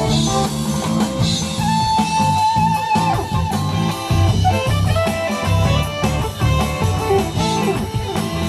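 Live rock band playing: electric guitars over bass and drums with keyboard, and a held, wavering lead note about two seconds in.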